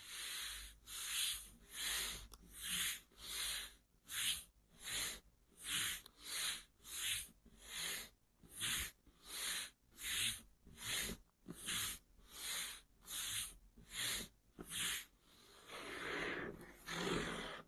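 Scratching strokes on a box in a steady rhythm, about three every two seconds, followed near the end by a longer, fuller rubbing sound.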